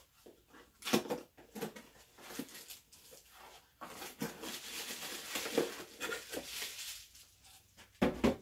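Cardboard lens box being opened and emptied: scattered taps and scrapes of cardboard, then a few seconds of rustling packaging, and a single knock near the end as the box is set down.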